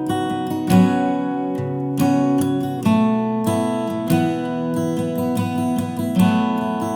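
Background music: acoustic guitar strumming chords, with a strum about every second.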